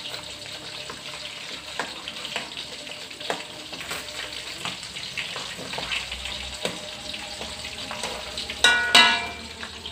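Tongkol (mackerel tuna) frying in shallow oil in an aluminium wok: steady sizzling with scattered crackling pops as the fish are turned with a metal spatula. Near the end, the spatula scrapes and rings loudly against the wok.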